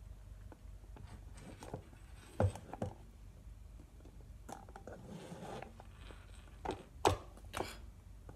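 Scattered light knocks and clicks of things being handled at a stainless steel kitchen sink, a few seconds apart, over a low steady hum.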